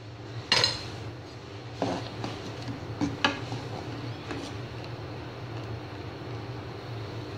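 A slotted spatula stirring curdling milk in a non-stick pan, scraping and knocking against the pan a few times, over a steady low hum.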